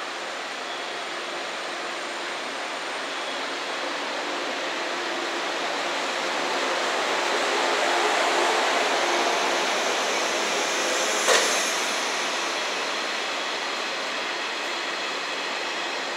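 An eight-car JNR 113 series electric train departing and running past at low speed, its wheels rumbling steadily on the track. The sound grows louder to a peak about eight seconds in, then eases off, with a single sharp click a little after eleven seconds.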